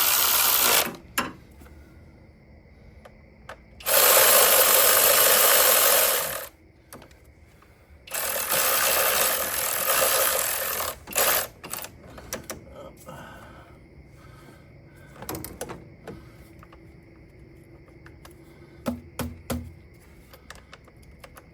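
A power tool spinning bolts in three bursts of two to three seconds each: one ending about a second in, one about four seconds in, one about eight seconds in, running down the intake manifold bolts. Light clicks and knocks of tool handling follow.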